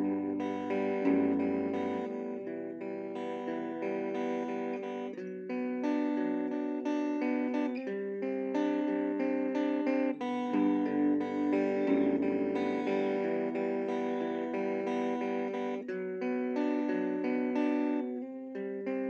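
Guitar played through a small 4-inch practice amplifier on its clean channel: sustained, undistorted notes in a chord progression, with the same low figure coming back about ten seconds later.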